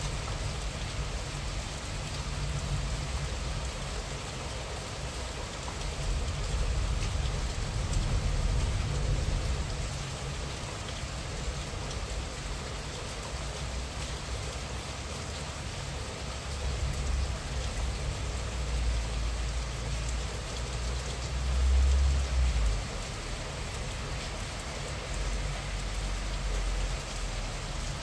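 Moderate rain falling steadily, heard as an even hiss. Under it a low rumble swells and fades, loudest about twenty seconds in.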